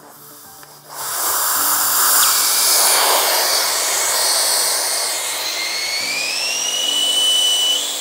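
Air hissing steadily out of a 2007 Kawasaki ZX6R's tire through the open valve stem, the valve core just removed to deflate it. The hiss starts about a second in, with a thin whistle in it that slowly rises in pitch. Background music plays underneath.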